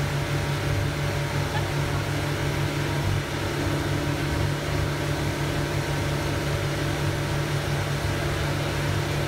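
Motorboat engine running steadily, a constant low drone over the rushing hiss of the churning wake and wind.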